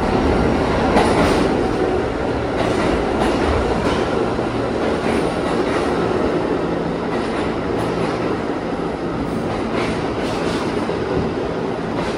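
New York City subway C train running into an underground station and past the platform close by: a steady rumble of steel wheels on rail, with irregular clacks as the wheels cross rail joints.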